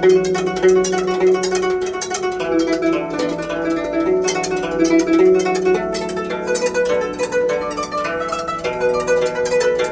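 Guzheng (Chinese zither) played: fast, dense plucked notes over held lower notes.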